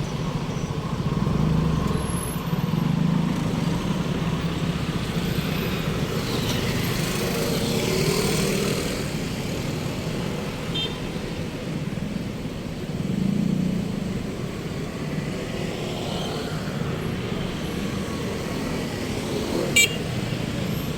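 Urban road traffic: vehicle engines running steadily, with cars and motorcycles swelling past now and then. Near the end there is one brief high-pitched beep.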